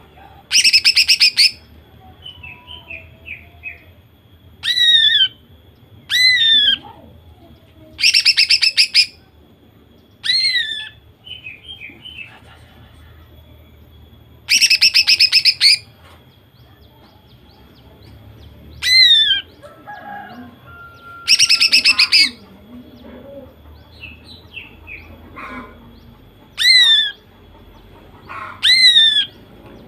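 Female greater green leafbird (cucak ijo) calling hard: four loud, rapid machine-gun rattles about a second long each, with six sharp downward-slurred whistles and softer chattering between them. This is the 'nembak' calling of a hen in breeding condition.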